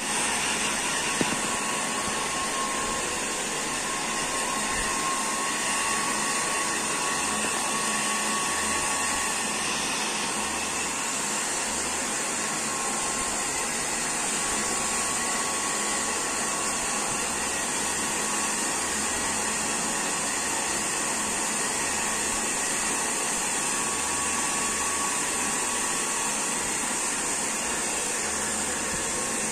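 Handheld electric hair dryer running steadily on a dog's wet coat, a constant blowing rush with a faint steady whine. A short click about a second in.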